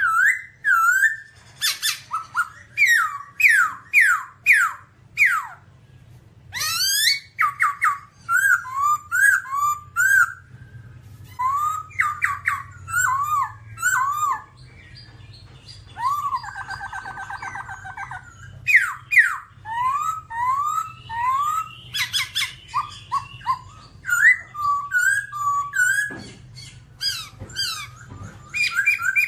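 Black-throated laughingthrush singing: loud, repeated whistled phrases of rising and falling swoops, with a short buzzy trill in the middle, over a low steady hum.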